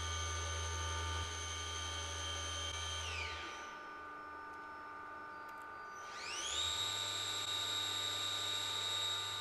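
Vertical machining center spindle whining at about 5000 rpm, then spinning down to a stop about three seconds in. It spins back up around six seconds in to a higher steady whine near its 6000 rpm top speed, over a steady machine hum.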